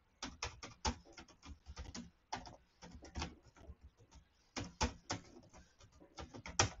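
Computer keyboard typing: uneven runs of key clicks, with a short pause a little past the middle.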